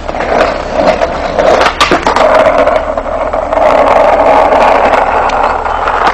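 Skateboard wheels rolling on pavement: a steady rolling rumble with a few sharp clacks about two seconds in.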